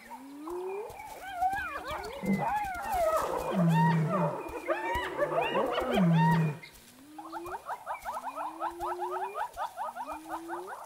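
Spotted hyenas calling at a kill: for about six seconds a tangle of squeals and rising and falling cries with low groans, then rising whoops about every second and a half over a fast chatter of short notes, about eight a second.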